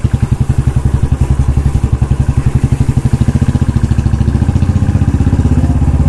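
Royal Enfield Bullet's single-cylinder engine running with a rapid, even exhaust beat; the beat becomes less distinct about four seconds in.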